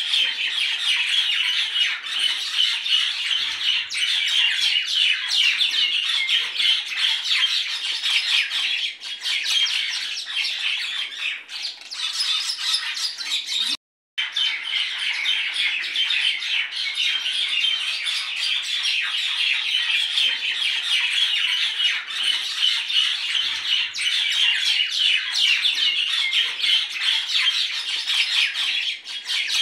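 A flock of birds chattering and squawking continuously, with the sound cutting out abruptly for a moment about halfway through.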